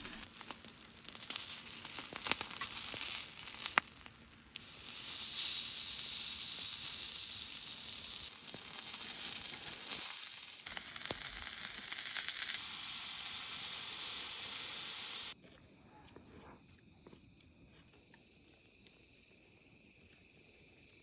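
Fatty meat sizzling on a barbecue grill, cut into a few short takes. About fifteen seconds in, the sizzling gives way to a quieter, steady chirring of night insects.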